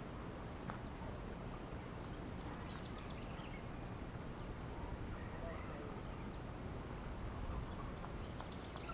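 Faint outdoor ambience: a steady low rumble with a few scattered, faint bird chirps.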